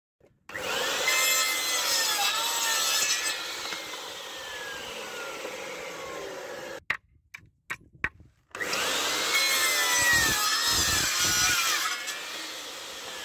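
DeWalt electric mitre saw cutting through old pallet boards, twice: each cut is a motor whine with the blade biting into the wood, lasting about five seconds. A few sharp clicks fall in a short break between the two cuts.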